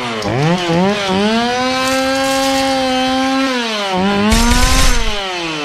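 Chainsaw engine revving: the pitch climbs from a low rev to a high steady scream, holds for about a second and a half, drops, revs up again and then winds down. A burst of rough noise, the loudest moment, comes a little after four seconds in.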